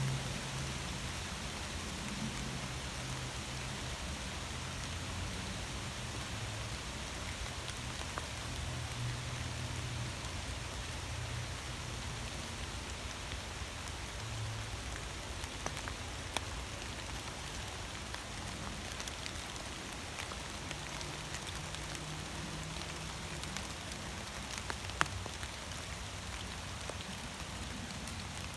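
Steady rain falling, an even hiss with scattered drop ticks, a couple of them sharper, and a patchy low rumble underneath.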